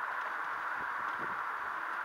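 Steady hissing road noise of a car driving on a paved avenue, heard from inside the cabin.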